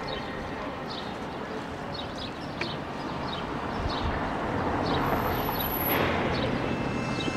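City ambience: a steady wash of distant traffic noise that swells about five seconds in, with light, irregular high ticks throughout.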